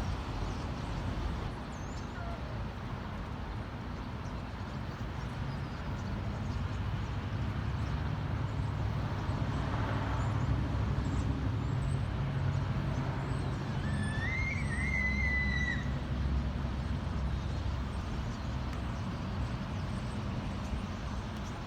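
Steady rumble of traffic on a nearby freeway, swelling a little toward the middle, with a large flock of birds chattering faintly over it and one clearer wavering call about fourteen seconds in.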